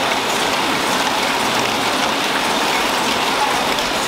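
Seaweed-stick rolling machine running on a factory line: a steady, even hiss with a fine crackle and no clear rhythm.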